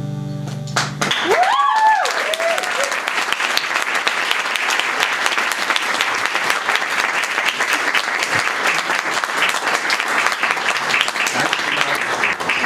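The last strummed chord of an acoustic guitar rings and stops about a second in. An audience then breaks into steady applause, with a few cheers at the start.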